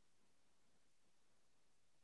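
Near silence: faint steady hiss of an open microphone.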